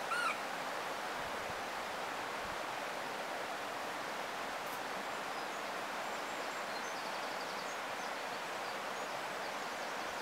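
Steady rush of river water tumbling through a boulder weir, an even unbroken wash. A short bird call sounds right at the start, and faint high chirps come about two-thirds of the way through.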